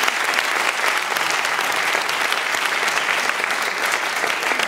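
Audience applauding: a dense, steady mass of hand claps.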